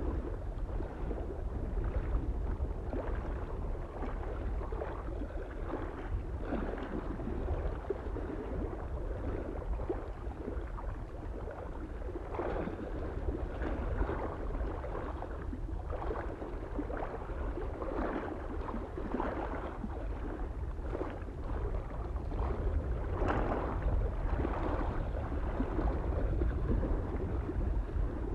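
Small lake waves lapping and splashing irregularly against the shore, with a steady low rumble of wind on the microphone.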